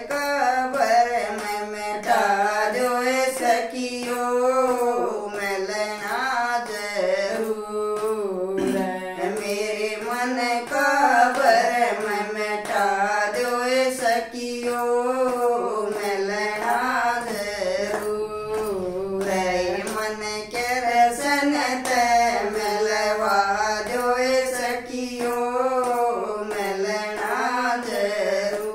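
Two women singing a Haryanvi devotional bhajan to Krishna, a steady unaccompanied sung melody, with hand claps keeping time.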